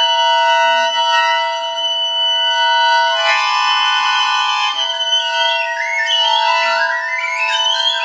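Recorder and chromatic button accordion playing contemporary music: the accordion holds steady, close-packed high chords while the recorder plays long high notes. About three seconds in the chord thickens for a second or two, and in the second half the recorder turns to quick warbling, bird-like figures.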